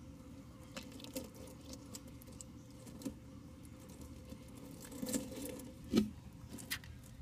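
Scattered light clicks and taps as a box turtle eats a red worm on aquarium gravel, the small stones shifting under it. There is a cluster of taps about five seconds in and the loudest tap about six seconds in, over a faint steady hum.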